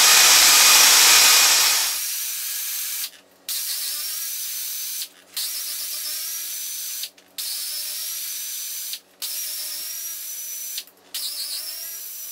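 Air ratchet with a 5/16 socket spinning out long-threaded driveline flange bolts, its high whine running in bursts of about two seconds with short stops between, rising as it spins up each time. The first two seconds are a louder rushing noise.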